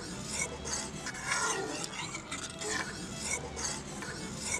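Ladle stirring milk that is being boiled down in a pot, scraping across the pot's bottom and sides in quick repeated strokes.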